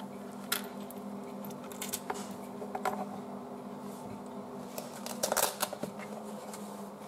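Light clicks and taps of a stainless-steel watch case and its link bracelet being handled and set down on the bench mat, with a short burst of clatter about five seconds in, over a faint steady hum.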